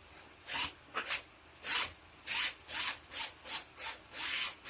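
A quick series of short, hissing strokes, about two or three a second and slightly uneven.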